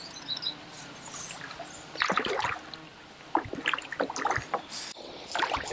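Irregular bursts of splashing in shallow water from a hooked carp being played in.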